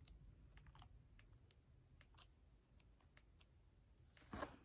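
Faint soft clicks and rustles of paper pages being turned in a large illustrated hardcover book, with one louder brief rustle near the end.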